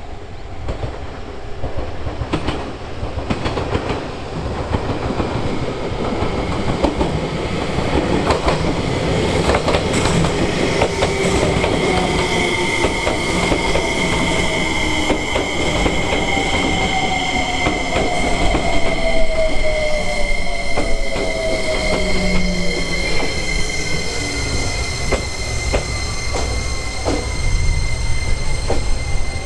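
JR Kyushu 303 series electric multiple unit running slowly past at close range, its wheels clicking over rail joints. A motor whine falls in pitch as the train slows, over a steady high-pitched squeal.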